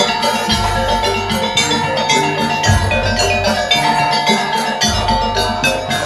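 Madurese daul (tong-tong) percussion ensemble playing live: a fast rhythm of rapid strikes and a melody over deep drum booms about every two seconds.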